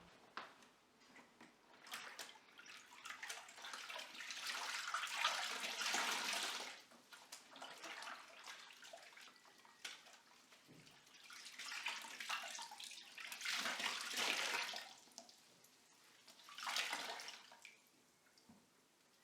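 Water running from a kitchen tap into the sink in three spells: a long one of about four seconds, another of about three, and a short one near the end.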